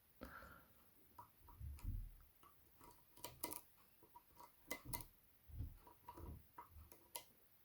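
Faint, irregular metallic clicks and scrapes of a flat lock pick probing the levers of a Fichet 484 ten-lever lock held under tension, with a few soft knocks of handling.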